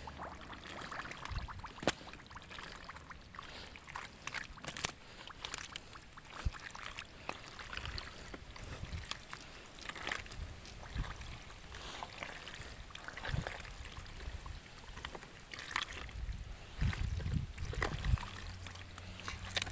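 Shallow water sloshing and splashing, with scattered small knocks and clicks.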